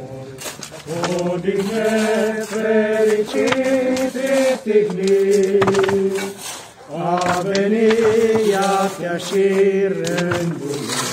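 Voices singing a slow hymn in Romanian, long held notes, with a short pause for breath between phrases about six and a half seconds in.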